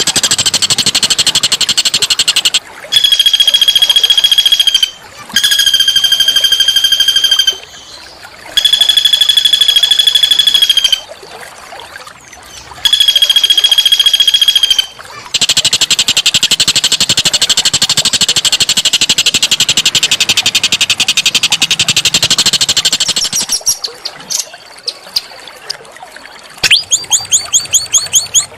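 A small songbird's harsh song: stretches of dense, rapid buzzing trills broken by four long, steady, high notes of about two seconds each. Near the end comes a quick run of rising chirps, about five a second.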